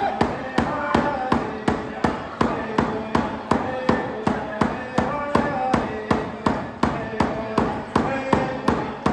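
Hand drum struck with a stick in a steady beat, about three beats a second, under a voice singing a traditional Haudenosaunee dance song.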